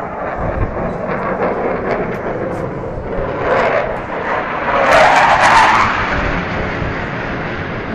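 Eurofighter Typhoon's twin EJ200 turbofan engines making a loud, continuous jet noise during a display pass, swelling to its loudest about five seconds in.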